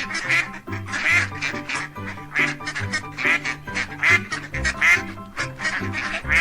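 An animal calling over and over, about once a second, over background music.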